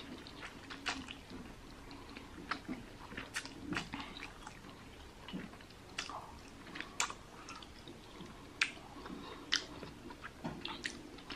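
Close-miked eating: a person chewing mouthfuls of spicy instant noodles, with irregular wet mouth smacks and clicks.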